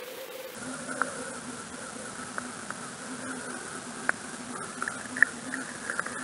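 Underwater sound through an action camera's waterproof housing: a steady muffled hiss with a faint hum, broken by scattered sharp clicks.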